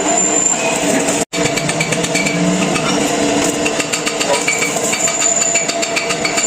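Steady, dense metalworking noise from fabricating a steel rotavator body: a continuous rattling, crackling tool sound with a few steady tones in it, cut off for an instant a little over a second in.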